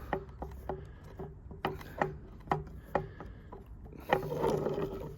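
Irregular small metal clicks and taps of a tool working a screw on Felco No. 2 pruning shears as the screw is tightened down during reassembly, with a brief stretch of rubbing and scraping about four seconds in.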